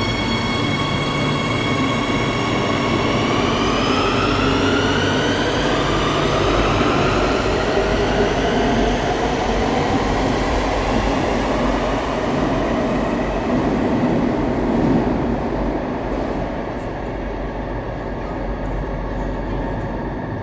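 Metro de Madrid Serie 8000 train's traction motors and inverters whining as it pulls out. A set of steady tones rises in pitch together a few seconds in, over the rumble of the train moving, and the whole sound fades near the end.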